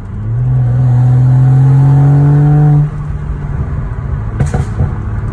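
Turbocharged inline-six of a BMW E90 N55 on an MHD stage 2+ tune, accelerating: the engine note rises steadily for about two and a half seconds, then drops off suddenly. About a second and a half later come a few sharp exhaust pops, heard from inside the cabin.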